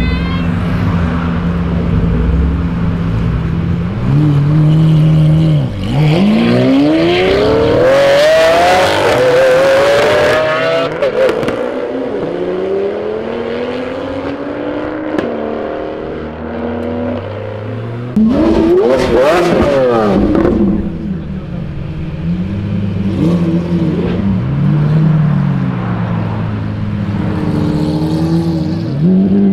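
A Nissan GT-R and other supercars pulling away hard from a junction in turn, engines rising in pitch through several gear changes, about six seconds in and again about eighteen seconds in. Between and near the end, idling engines with short revs, Lamborghini Aventadors among them.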